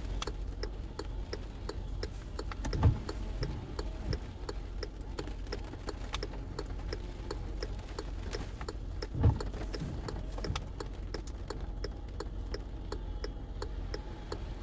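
A car's turn-signal flasher ticking evenly at about three clicks a second, over the low steady hum of the car idling in rain. Two dull thumps come about three seconds in and about nine seconds in.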